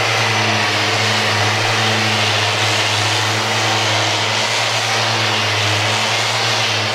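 Festool RO90 Rotex sander with a 40-grit disc running steadily, sanding down heavy draw-knife cuts on a wooden slab's natural edge, together with the hiss of its dust extractor.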